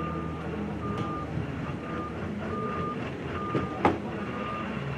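A vehicle's reversing alarm beeping at a steady pace, about one high beep a second, over a low steady hum. A single sharp crack is heard near the end.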